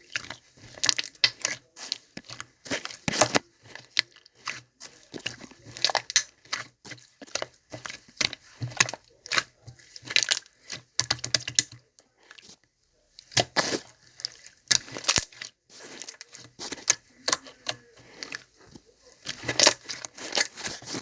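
Clear, jelly-textured slime being squished, poked and stretched by hand, giving a stream of irregular sticky clicks and pops, with a short pause a little past halfway.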